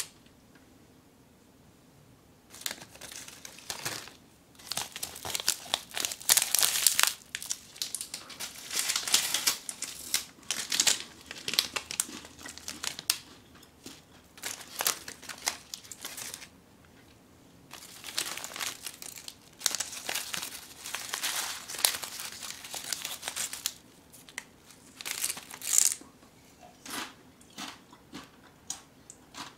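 Plastic and foil snack wrappers crinkling as the packets are handled, picked up and set down. The crinkling comes in irregular bursts with short pauses, after a quiet first couple of seconds.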